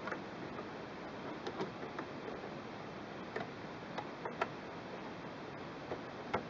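Light, irregular clicks and taps of small metal parts as the auto-cutter mechanism of a Singer Quantum Stylist 9960 sewing machine is worked back into place in the machine's frame, over a steady hiss.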